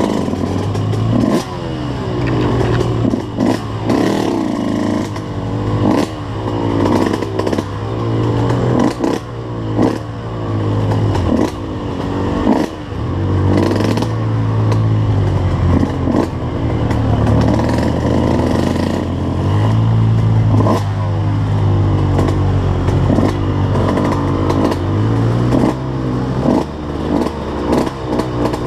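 Suzuki RM125 two-stroke dirt bike engine on the trail, revving up and falling off again and again as the throttle is opened and shut through the gears. Rattles and knocks from the bike run through it.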